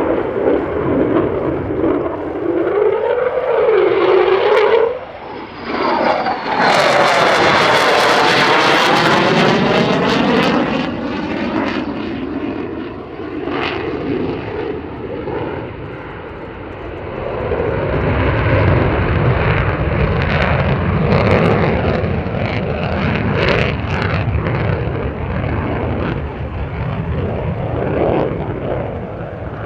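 Lockheed Martin F-35A Lightning II's single afterburning turbofan during a display pass. The jet noise builds, then swells into a loud close flypast from about seven to ten seconds in, with a sweeping, phasing whoosh. A deep low rumble follows as the jet pulls away and keeps manoeuvring.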